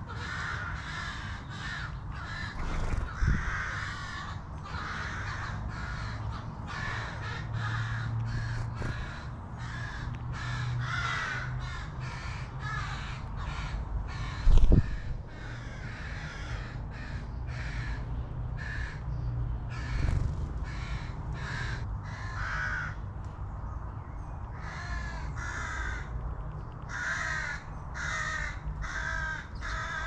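Crow-family birds cawing repeatedly, call after call, over a steady low hum. A dull thump about halfway through is the loudest sound.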